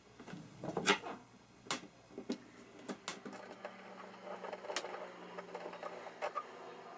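Hand screwdriver turning a screw through a hinge into a metal T-nut: a few sharp, irregular clicks and scrapes of the blade in the screw head. A faint steady hum comes in about halfway.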